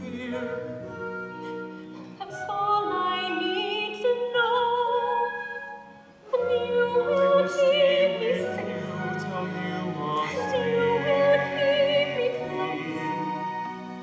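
Theatre music: singing with vibrato over orchestral accompaniment. It fades briefly about six seconds in, then comes back in suddenly.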